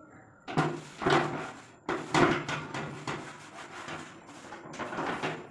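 Repeated scraping and rubbing strokes, about five in all, roughly a second apart, over a faint steady low hum.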